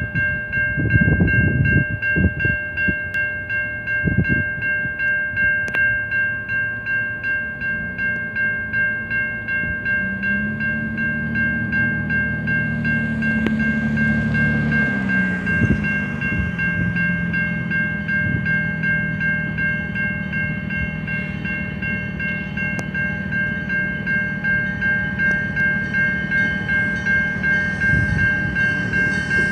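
Railroad grade-crossing warning bell ringing steadily, about two strikes a second. From about ten seconds in, the low rumble of an approaching diesel locomotive rises beneath it and keeps on.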